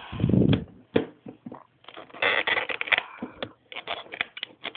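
An iPod touch box being pulled open by hand: a dull bump at the start, then packaging scraping, crinkling and clicking as the lid comes off.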